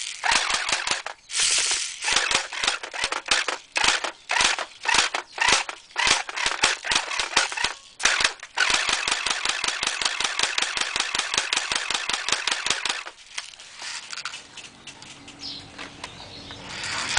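Well P90 airsoft submachine gun firing in long strings of rapid, evenly spaced shots with short pauses between, the firing stopping about three-quarters of the way through.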